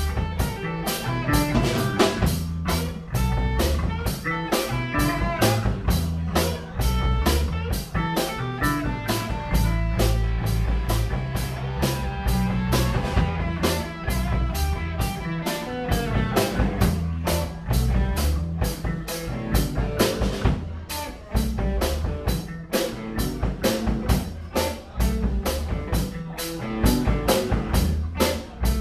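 Live rock band playing electric guitar, bass guitar and drum kit, with a steady beat.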